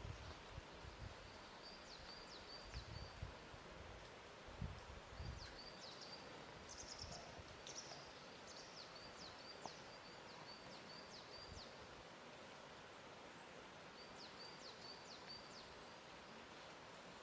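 Faint lakeside ambience: an even hiss with soft, low thumps of water lapping in the first few seconds. A small bird repeats phrases of quick, high chirps several times.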